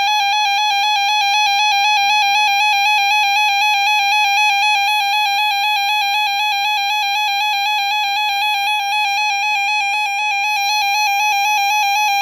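RadioShack 12-262 NOAA weather alert radio sounding its alert test: a loud, steady high-pitched alert tone with overtones.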